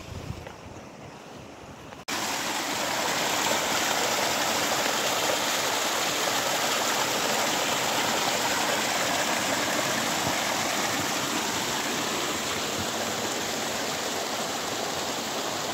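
Mountain stream water splashing down over rocks in a small cascade, a steady loud rushing that starts abruptly about two seconds in. Before that, quieter wind on the microphone with low rumbling.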